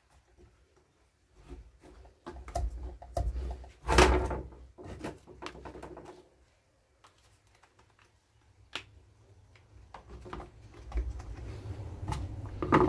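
Clicks and knocks of plastic parts being handled and fitted onto the top of a chainsaw, with a louder knock about four seconds in and a sharp click near the nine-second mark.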